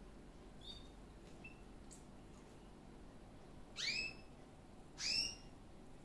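Domestic canary calling: a couple of faint short chirps, then two louder rising call notes, each sweeping upward and levelling off, about a second apart in the second half.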